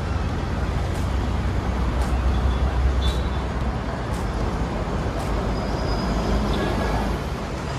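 City street traffic: a steady low rumble of passing vehicles that swells about two to three seconds in, with people's voices in the background.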